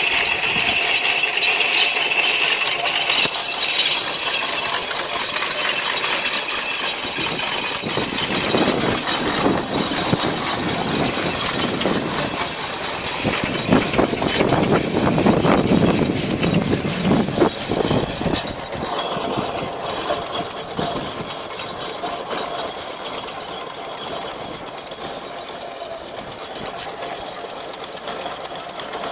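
Steamroller's steam engine running, with a steady high hiss and a rapid mechanical clatter that is loudest in the middle and fades over the last ten seconds or so.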